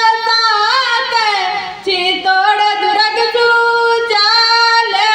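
A young girl singing solo and unaccompanied into a handheld microphone, holding long, gliding notes, with short breaks between phrases about two and four seconds in.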